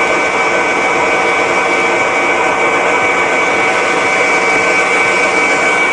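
Electric stand mixer running at a steady speed, its flat beater mixing cookie dough of butter, sugar and flour; an even motor whine that does not change.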